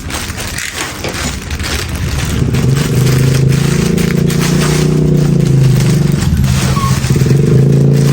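Scraping and crackling for about two seconds, then an engine starts a steady low drone that runs on to the end.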